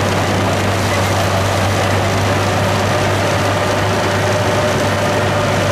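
Farm machine's engine running steadily with a constant low hum, heard from on board the machine.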